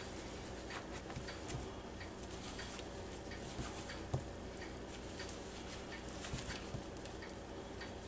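Gloved hands pressing and turning a chicken thigh in a bowl of flour: faint, irregular soft patting and rustling with small ticks, one a little sharper about four seconds in.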